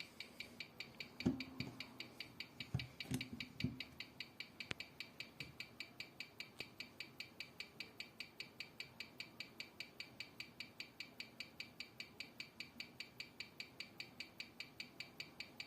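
Omega cal. 283 mechanical watch movement, freshly rebuilt, ticking steadily at about five ticks a second. A few soft knocks sound in the first four seconds.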